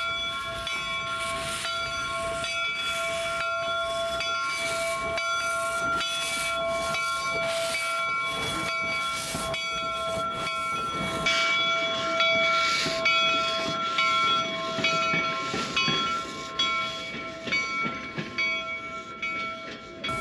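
Central Pacific Jupiter replica 4-4-0 steam locomotive chuffing with evenly spaced exhaust beats, about one and a half a second, over a steady hiss with several held high tones. About eleven seconds in, the beats grow louder and less regular.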